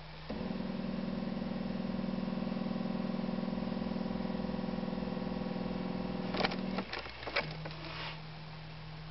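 The starter cranking the Lupo 3L's 1.2 TDI three-cylinder diesel for about six and a half seconds in a −10 °C cold start, with a fast even pulsing, then cutting off with a few clicks. A steady low hum sounds before and after the cranking.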